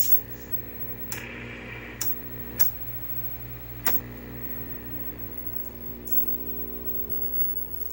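Sharp clicks of a vintage portable TV's front-panel control knobs being turned, four of them in the first four seconds. Under them runs a steady hum of several low tones.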